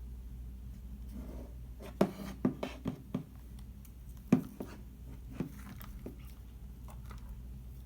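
Clear slime being handled, giving a run of sharp sticky clicks and pops about two seconds in, then a few single louder pops around four and five seconds.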